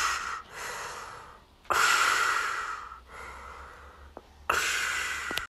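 Breathing sound effect of an astronaut's helmet: three loud, hissing breaths about two seconds apart, each starting suddenly and fading over about a second.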